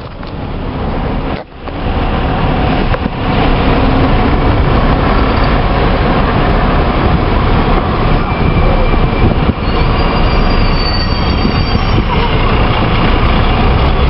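Loud, dense street traffic noise with a steady low rumble, fading in over the first couple of seconds; a thin high whine joins for a couple of seconds after about ten seconds.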